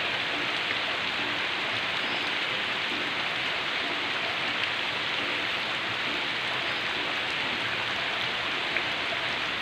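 Heavy rain pouring down steadily as an even, dense hiss, with no wind gusts or thunder.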